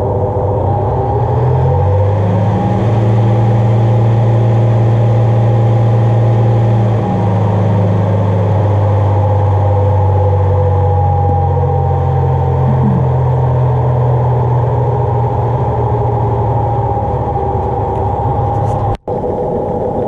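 Washing machine driven by a Tesla electric motor through a frequency converter, running loudly with a strong low hum whose pitch steps up and down a few times. The sound cuts out abruptly for an instant near the end.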